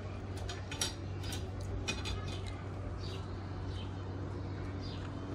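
Small clicks and clinks of someone eating by hand from a plate, scattered through the first half, over a steady low hum.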